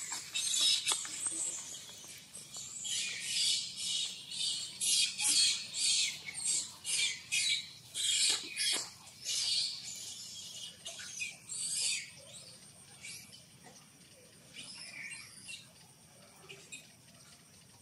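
Baby long-tailed macaque screeching in a rapid run of shrill, harsh cries that stop about twelve seconds in. After that only faint bird chirps and a steady high insect hum are left.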